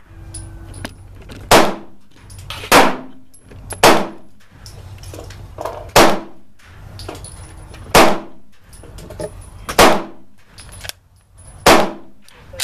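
Kriss Sphinx SDP 9mm semi-automatic pistol firing seven single shots, spaced unevenly about one to two seconds apart.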